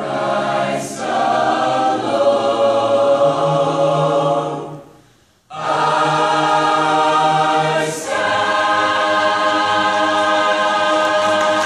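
School choir singing a hymn in full chords. About five seconds in, the choir breaks off briefly, then comes back in sharply on a long held chord.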